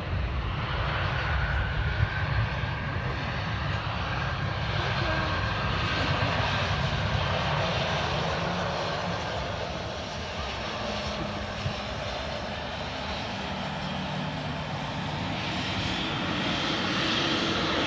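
LOT Polish Airlines airliner landing, its engines a steady rumble and rush of noise that eases slightly midway and swells louder near the end.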